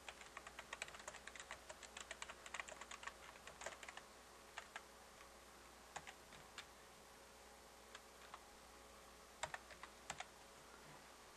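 Typing on a computer keyboard: a quick run of keystrokes for the first few seconds, then a few scattered clicks.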